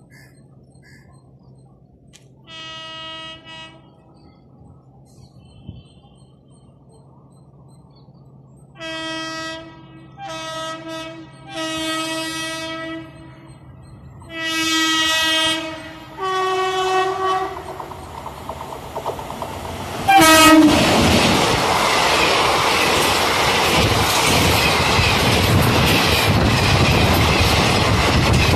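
A WAP-7 electric locomotive sounding its horn in a series of separate blasts as it approaches at speed, the last blast lower in pitch as it draws level. About twenty seconds in, a loud, steady rush and rattle of the passenger coaches going by takes over.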